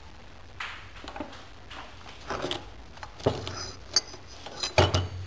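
Metal parts and tools clinking and knocking together as they are handled, a string of irregular knocks with a few sharper ringing clanks, the loudest near the end.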